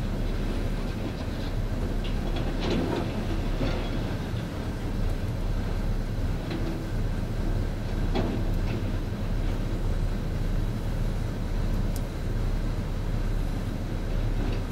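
Heavy demolition machinery running steadily with a low diesel engine rumble, with a few scattered knocks and clanks of debris.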